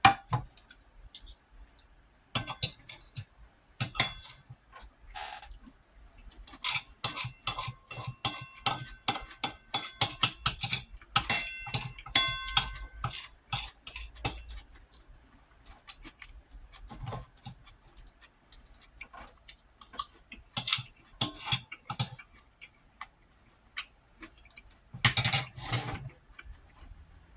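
Metal utensil clinking and tapping against a dish while eating, with a fast run of taps that ring briefly in the middle and a longer noisy burst near the end.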